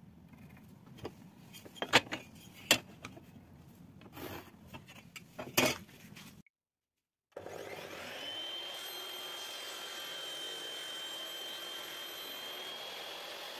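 Pencil scratching along a combination square on a wooden plank, with a few sharp taps and knocks. About six and a half seconds in the sound cuts to a second of silence, then a benchtop table saw runs steadily with a thin high whine.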